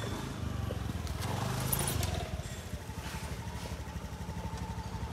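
Motorcycle engine running close by. It swells briefly between one and two seconds in, then settles into an even, rapid idle putter.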